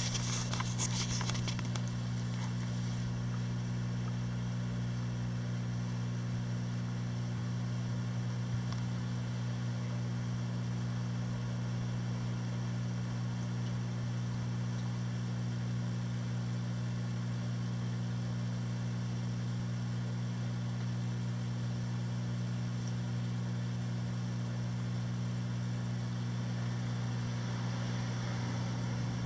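Steady low electrical hum of a Red Sea Max 130 reef aquarium's pumps and equipment, with a short rub of handling noise at the very start.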